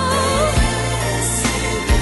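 A slow soul-gospel song with a singer holding a wavering note that ends about half a second in, over steady bass and a soft beat.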